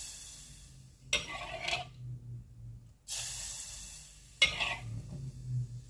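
Hot frying oil ladled onto thinly sliced garlic, hissing in two sizzling bursts about three seconds apart, each fading over about a second. Each burst is followed by a short scrape and clink of a metal ladle against the wok.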